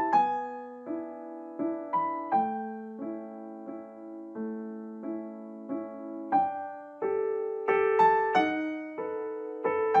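Background music: a slow, gentle piano piece, its notes and chords struck about one or two a second, each ringing and fading.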